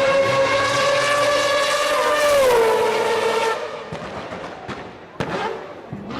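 Motocross bike engine running at high revs with a steady high pitch, then dropping in pitch about two and a half seconds in and fading away as the bike passes. A couple of short sharp sounds follow near the end.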